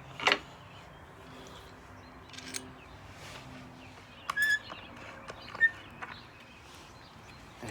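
A few scattered knocks and clicks of tools and boards being handled: a sharp knock near the start, softer clicks, and two short high chirps or squeaks about four and a half and five and a half seconds in.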